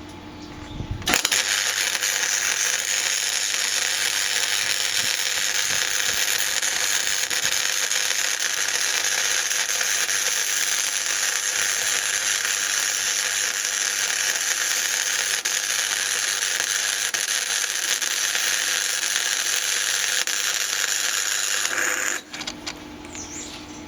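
Electric welding arc running one continuous bead for about twenty seconds: a steady, dense crackle that starts about a second in and cuts off near the end.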